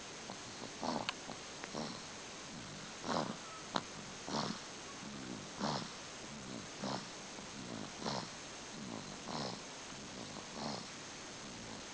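Sleeper snoring in short rhythmic snorts, one about every second and a quarter. There is a single sharp click about four seconds in.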